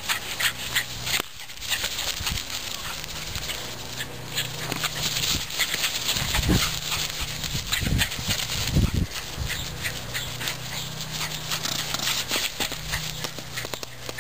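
A small dog, a miniature pinscher, running and playing in grass: quick rustling and footfalls throughout, with a few heavy low gusts of wind buffeting the microphone around the middle.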